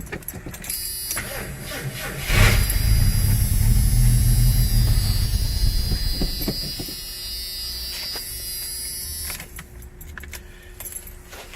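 Ford Granada straight-six engine cranking, then catching on starter fluid about two seconds in. It runs loudly for several seconds, fades, and dies after about seven seconds of running: it fires only on the starter fluid and will not keep running on its own fuel.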